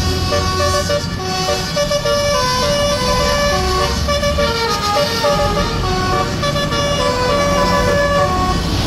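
Roof-mounted basuri multi-trumpet musical air horn on a bus playing a telolet melody, one note quickly stepping to the next, over a low rumble.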